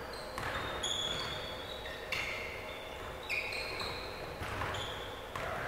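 Basketball bouncing on a court, with several short high-pitched sneaker squeaks on the gym floor.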